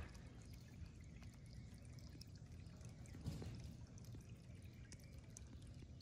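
Near silence, with a faint trickle of water from a small solar birdbath fountain, and a soft thump about three seconds in.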